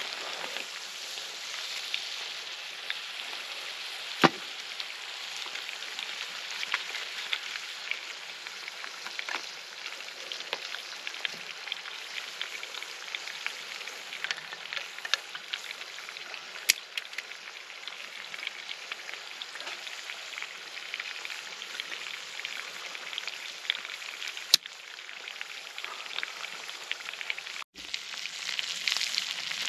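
Food sizzling and frying in a hot pan over a campfire stove, a steady hiss dotted with small crackles and a few sharp pops. The sound drops out for an instant near the end and comes back louder.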